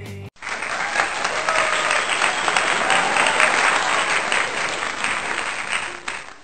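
Crowd applause, dense and steady, with a few voices in it, starting abruptly just after a cut from rock music.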